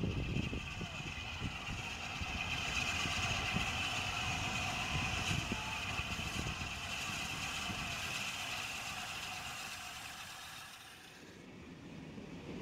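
LNER A4 steam locomotive 60019 Bittern rolling through a station with its train, a steady mechanical running sound with a high hiss. There is low rumbling in the first moments, and the sound drops away and changes near the end.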